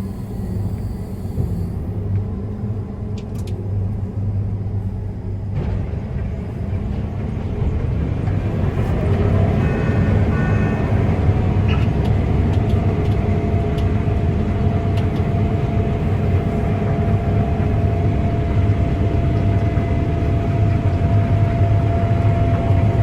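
Heavy wheat-harvest machinery running with a steady engine rumble, growing louder about six to eight seconds in, with a steady whine joining in around nine seconds.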